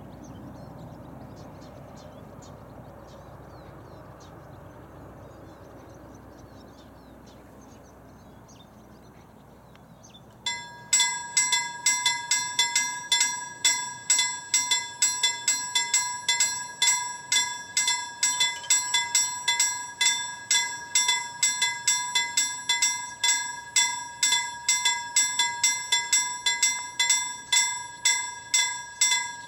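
Level crossing warning bell starting up after about ten seconds of faint low background noise, then ringing on with about two strikes a second: the crossing has activated for an approaching train and its barriers are coming down.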